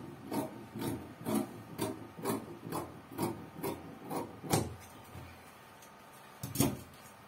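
Scissors cutting through fabric in a steady run of snips, about two a second, then a pause and one more snip near the end.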